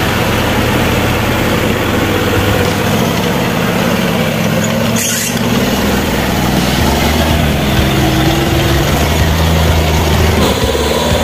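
Daihatsu Taft jeep's engine running and revving under load as it crawls through deep mud ruts in four-wheel drive, with a short dip about five seconds in.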